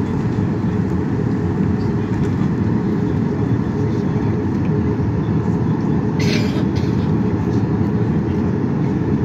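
Cabin noise of a Boeing 737-800 taxiing: a steady low rumble from its CFM56 turbofan engines at taxi power and the rolling airframe, with a brief hiss about six seconds in.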